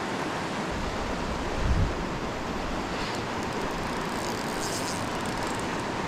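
Mountain river water rushing steadily over rocks, an even hiss with no break. A brief low rumble swells and fades a little under two seconds in.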